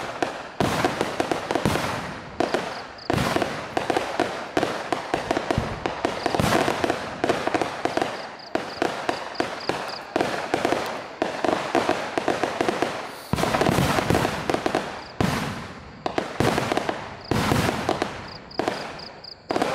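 A long string of firecrackers hanging beneath a rising hot-air balloon, going off in rapid runs of sharp bangs packed close together, with only brief lulls.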